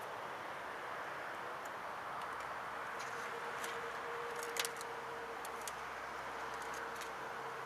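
Steady outdoor background noise, with scattered light clicks and taps from fishing tackle being handled at the rod rack, the loudest a little past halfway.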